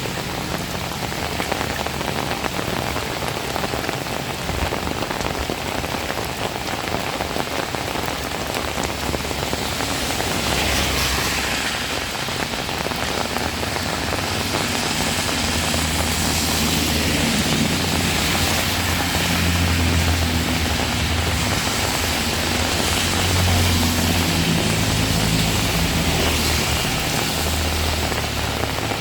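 Heavy rain falling steadily, a dense even hiss, with an intermittent low rumble underneath that comes and goes, strongest in the second half.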